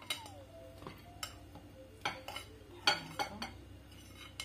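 A metal spoon clinking against glass bowls as cooked rice is spooned from one bowl into another: several sharp clinks spread over a few seconds.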